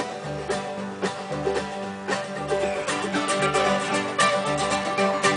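Acoustic bluegrass jam: plucked guitar and banjo over a steady bass line that alternates low notes about twice a second.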